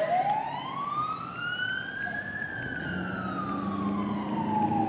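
Fire truck siren sounding one slow wail on an emergency response: it rises in pitch for about two seconds, then falls slowly. A low steady drone comes in during the second half.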